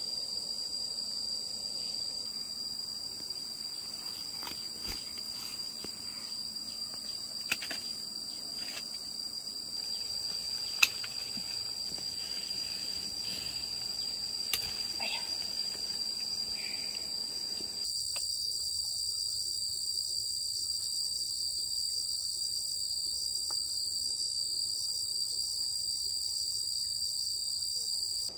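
Steady high-pitched insect chorus of crickets or cicadas, one unbroken drone. In the first part a few sharp clicks and knocks sound over it, and about two-thirds in the lower background drops away abruptly, leaving only the insects.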